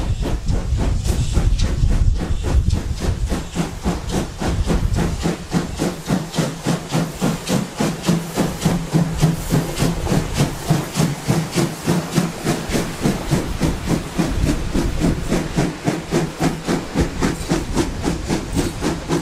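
A steam locomotive passing at speed. A heavy low rumble fills the first few seconds, then quick, even exhaust beats at about four a second, with the hiss of steam.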